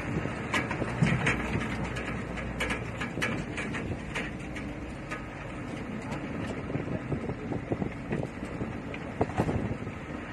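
Car driving along a road, heard from inside the cabin: a steady engine and road rumble, with a run of sharp clicks and rattles through the first half and a few more near the end.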